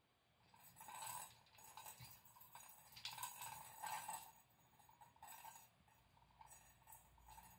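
A plastic roly-poly tumbler toy wobbling as a cat bats it with its paw, the ball inside rattling and clinking in short faint bursts roughly once a second.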